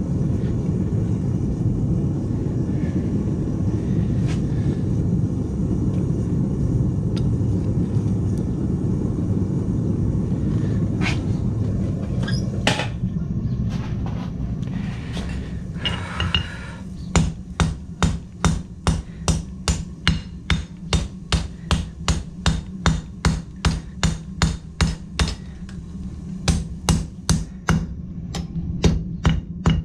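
A steady low rumble, then, about halfway through, a blacksmith's hammer starts striking hot steel on an anvil in an even rhythm of about two ringing blows a second, with a short pause near the end.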